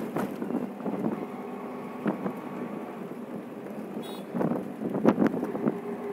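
Steady road and engine noise of a moving vehicle, with wind rushing across the microphone and swelling irregularly. A brief high-pitched chirp comes about four seconds in.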